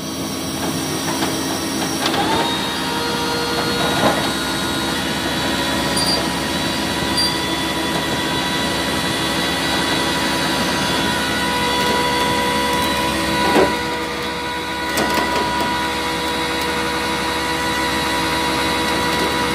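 Rollback tow truck's engine and hydraulic winch running steadily while pulling a car, with a couple of short knocks partway through.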